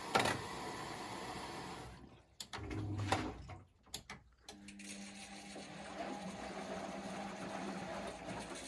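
Bosch Maxx WFL1662 washing machine running in its spin cycle: a stretch of whirring noise, a few sharp clicks and knocks in the middle, then a steady motor-and-drum hum with a low held tone from about halfway.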